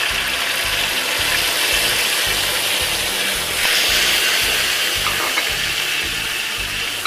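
Blended chilli paste sizzling in hot oil with fried garlic in a wok, with a steady hiss and a spatula scraping the pan as it is stirred.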